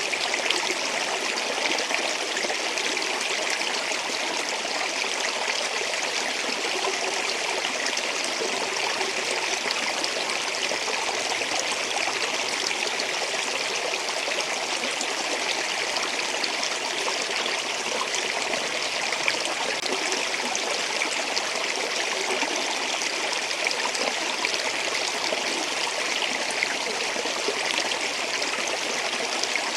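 Running water flowing steadily: a continuous, even rush of water without pause or change.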